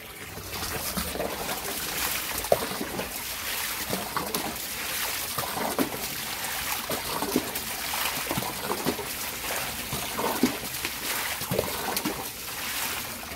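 Running water streaming and splashing over a heap of boiled radish greens and into a plastic basin as they are rinsed, with many small splashes throughout.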